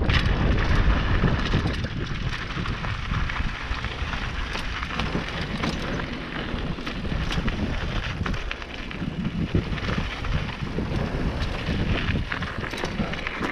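Mountain bike rolling down a loose gravel track: tyres crunching over stones, with frequent clicks and rattles from the bike and wind rushing over the camera microphone.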